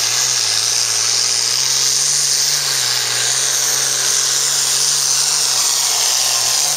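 Turbocharged International diesel pulling tractor running flat out under load as it drags the sled, a steady engine note with a high whine over it.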